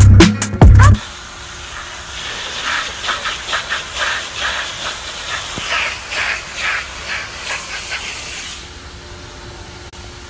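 About a second of loud music, then a strong water jet hissing and splashing as it sprays across a wet concrete floor, surging unevenly for several seconds before settling to a quieter, steady hiss near the end.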